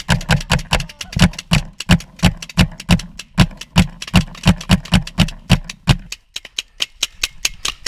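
Rapid gunfire from skirmish-game guns: an irregular run of sharp pops, several a second. For about the first six seconds many shots carry a heavier thump; after that the shots are thinner and fainter.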